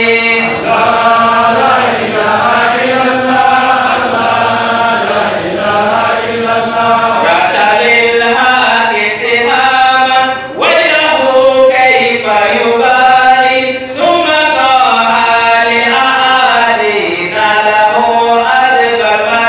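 A man chanting a melodic Islamic devotional chant into a handheld microphone, in long drawn-out phrases with brief pauses for breath about ten and fourteen seconds in.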